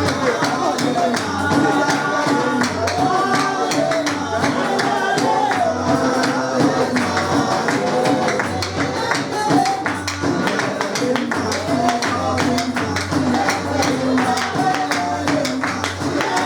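Live praise music: singing over a band with a steady percussion beat and shaken tambourine-like jingles.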